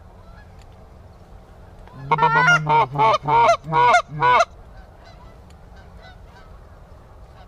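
A quick run of about seven loud Canada goose honks, starting about two seconds in and lasting about two and a half seconds, each call bending sharply in pitch.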